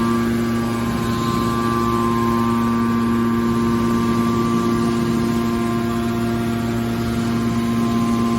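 Hydraulic car body baler running, a steady hum with a constant whine over it.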